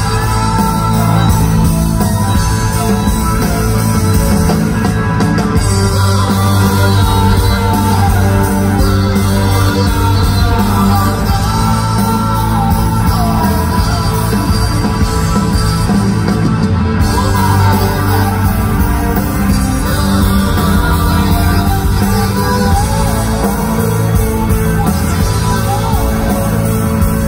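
Live rock band playing loud and without a break: drums, bass guitar, keyboards and a string section of violins and cello.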